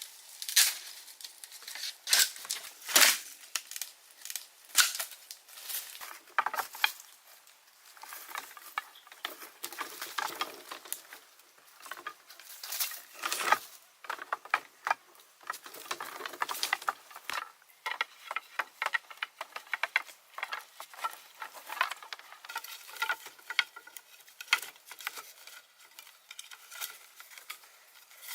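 Dry sticks and leaves being handled, rustling and crackling in dense, irregular clicks and snaps.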